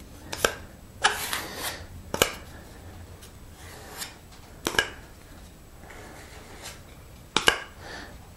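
Scattered sharp knocks and clicks of tools and wood being handled on a workbench, with short scraping stretches in between as hide-glue squeeze-out is cleaned up around a glued-on block. The loudest knock comes near the end.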